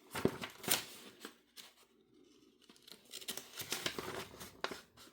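Paper and packaging being handled: irregular rustling and crinkling with sharp clicks, dropping quieter for about a second in the middle.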